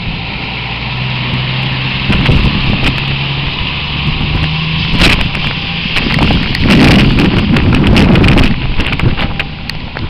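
Typhoon storm wind with heavy gusts buffeting the microphone, loudest in a long gust about two-thirds of the way through. Under it are a steady rushing noise and scattered sharp ticks.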